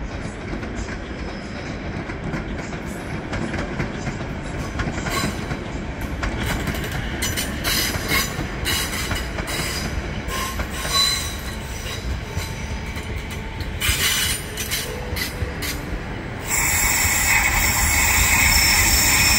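Trains moving through a station: rumble of wheels on rail with scattered clicks and short squeals from the wheels. About three-quarters of the way in, a louder, sustained high screech sets in as the locomotive-hauled Intercity train comes in along the platform, typical of wheel and brake squeal on arrival.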